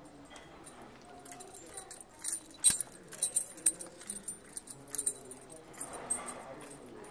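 Small metal objects jingling and clinking irregularly with the walker's steps, in quick uneven clusters. The sharpest clink comes a little under three seconds in. Faint voices murmur underneath.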